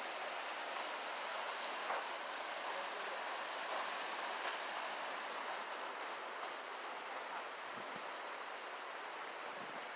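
Steady rushing of a shallow river flowing over rocks, easing slightly near the end.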